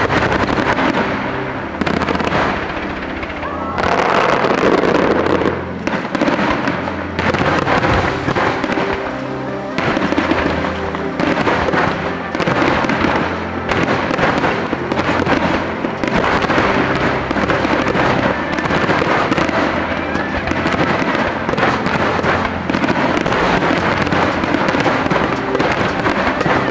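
Aerial fireworks bursting and crackling in dense, rapid succession, starting abruptly, over background music with sustained notes.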